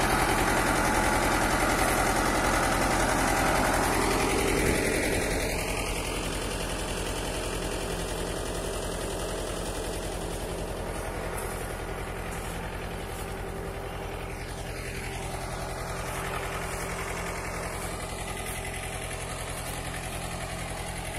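Farm tractor engine running steadily while it pulls a lifter through the soil to turn up sweet potatoes. It is louder for the first four or five seconds, then drops to a lower, steady hum.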